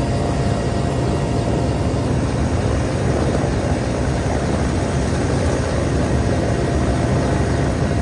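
Helicopter rotor and engine noise heard from inside the cabin at the open door, loud and steady.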